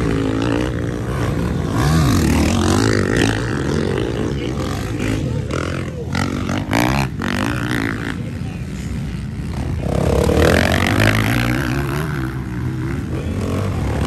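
Motocross bike engines revving up and down as riders work the throttle around the dirt track, the nearest bike passing close, with other bikes running further off.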